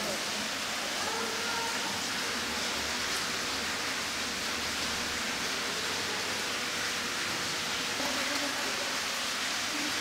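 Steady, even rushing background noise, with faint distant voices near the start.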